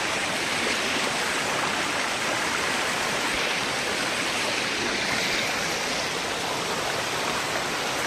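Waterfall rushing over rocks: a steady, even roar of falling water.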